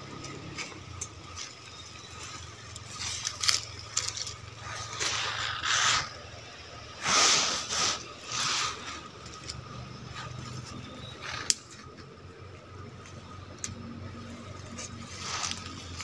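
Leaves and fern fronds rustling and swishing in bursts as a person pushes through dense undergrowth on foot, with one sharp click about three-quarters of the way through.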